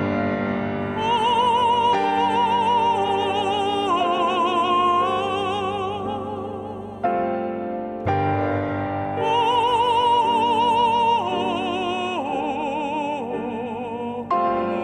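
Music: a high operatic voice sings two long phrases with strong vibrato over sustained piano chords. The first phrase starts about a second in, the second about nine seconds in.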